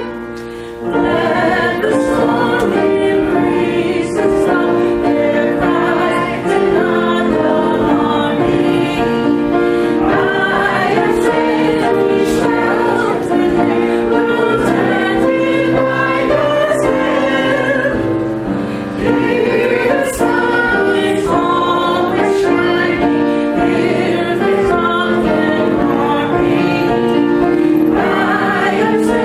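Church choir and congregation singing a hymn together over sustained instrumental accompaniment, many voices in harmony.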